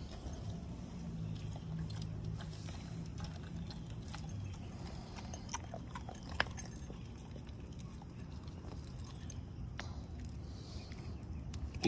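American Pit Bull Terrier chewing and tearing at raw meat, with wet mouth sounds and scattered sharp clicks, the sharpest about six and a half seconds in.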